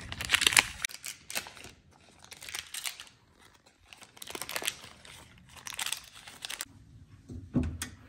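Butter wrappers crinkling and tearing in a string of short rustling bursts with pauses between them, as sticks of unsalted butter are unwrapped.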